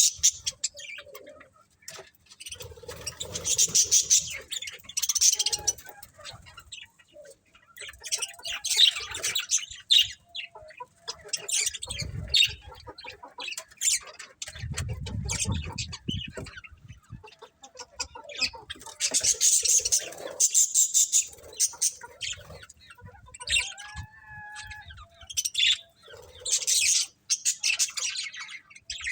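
A flock of small parrots chirping, busy clusters of quick high chirps coming and going in waves, with a brief low rumble about midway.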